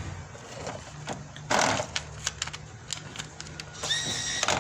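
Low steady hum of a car idling, with a short burst of hissing noise about a second and a half in and a few light clicks. Near the end a high, steady electronic tone sounds.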